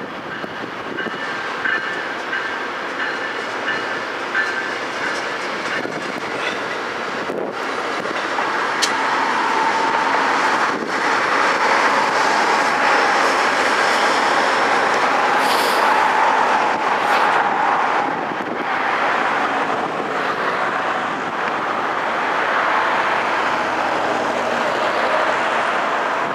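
Metra commuter train rolling past, its wheels clicking over the rail joints, growing louder about ten seconds in and staying loud, with a steady whine riding on top through the loudest stretch.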